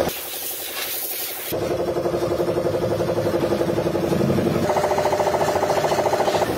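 Hiss of a hose spraying water over metal idli mould trays for about the first second and a half. After that comes the steady, fast-pulsing drone of running factory machinery, which steps up in pitch about two-thirds of the way through.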